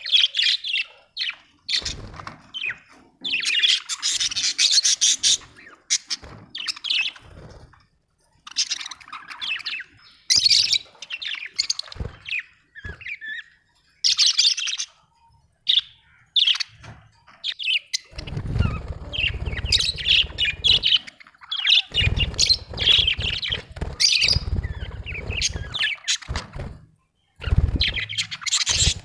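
Budgerigars chirping in rapid bursts of short, high calls, with pauses between. A low rumble comes in under them for a few seconds at a time in the second half.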